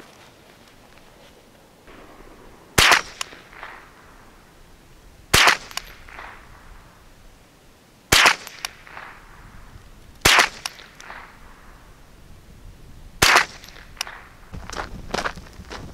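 Ruger 10/22 semi-automatic .22 LR rifle firing five high-velocity Federal Value Pack rounds (1200 fps, supersonic), one at a time about two to three seconds apart. Each shot is a sharp crack with a short echo after it.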